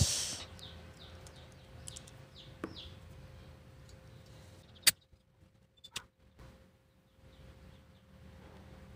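Butane gas being injected into an S.T. Dupont lighter's refill valve, a short hiss at the very start. About five seconds in comes a sharp metallic click, and a smaller click about a second later, as the lighter's lid is opened and it is lit.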